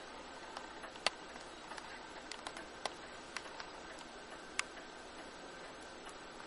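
Light, irregular clicks of computer controls being worked, over a faint steady hiss.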